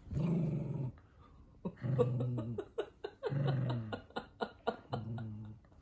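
Toy poodle growling in protest at the socks on its paws: four drawn-out low growls, with short clicks in between.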